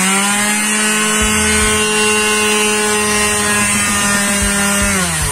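Electric orbital sheet sander running unloaded with a loud, steady buzzing hum. It has the severe vibration and loud noise that need repairing. The pitch starts to drop right at the end as the motor winds down.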